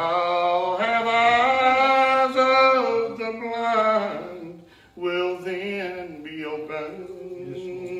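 A man's voice preaching in a sung chant, drawing out long wavering notes, with a short break about halfway through: the chanted sermon delivery of an Old Regular Baptist preacher.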